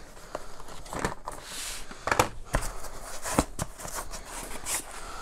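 Cardboard box and its inner packaging being handled and opened by hand: irregular rustling and scraping with scattered small taps and clicks, one louder click about two seconds in.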